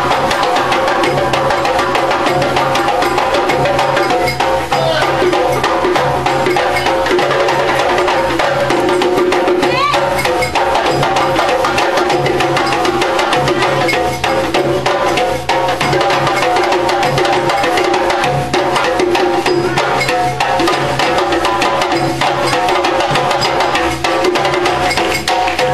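Live ensemble music with fast, dense hand percussion and drums over steady pitched tones.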